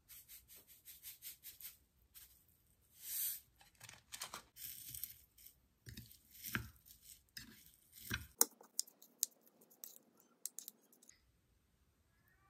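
Seasoning shaken from a cylindrical shaker onto a bowl of avocado and seaweed, a quick rattle of taps. Then a metal spoon tosses the salad in a ceramic bowl, with soft wet scrapes and several sharp clinks of spoon on bowl near the end.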